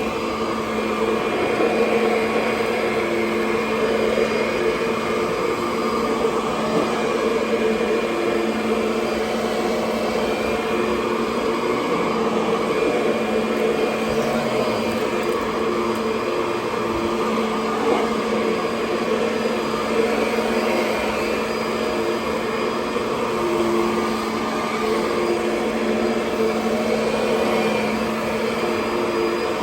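Kirby Sentria 2 upright vacuum cleaner running steadily with a constant motor hum, a fainter tone coming and going over it.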